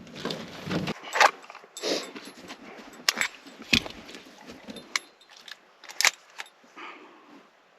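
Gear being handled and packed: scattered clinks, rattles and rustles of small metal and fabric, with one heavier knock near the middle.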